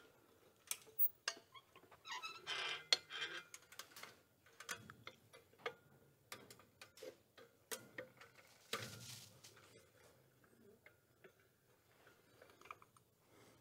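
Scattered light clicks and taps at an uneven pace, with two short scraping rustles, one two to three seconds in and another near nine seconds.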